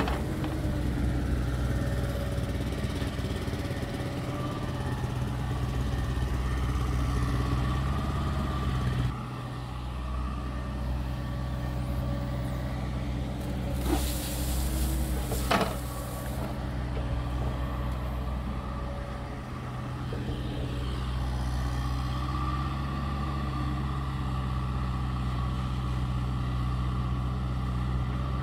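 A heavy machine's engine runs steadily, its note shifting slightly about a third of the way in, with a short hiss of released air and a couple of sharp clicks about halfway through.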